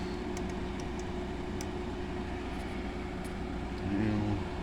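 GE 5,050 BTU window air conditioner running on low fan: a steady, even hum with a constant tone.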